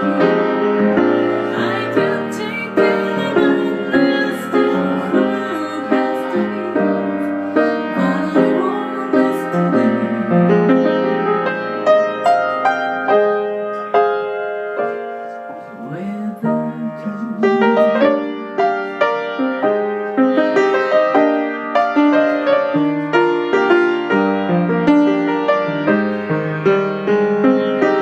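Piano playing an instrumental passage with no singing, a steady flow of struck notes that softens briefly about halfway before picking up again.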